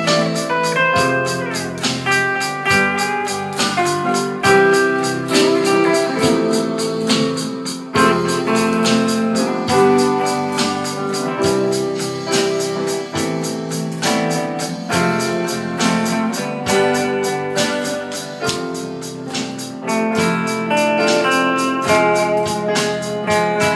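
Instrumental band music: an electric lead guitar carries a slow sustained melody over keyboard, electric bass, rhythm guitar and drums keeping a steady beat.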